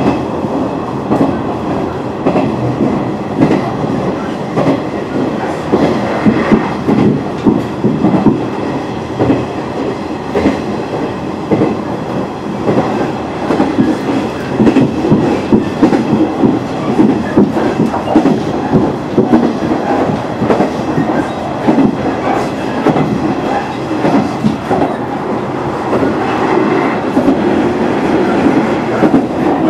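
Running noise heard inside a KiHa 110 series diesel railcar on the move: the wheels rumble over the track with a dense, irregular clatter of clicks.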